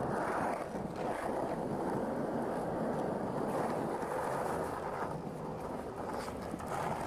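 Skateboard wheels and trucks running along concrete and a ledge, a steady rough rolling and scraping noise.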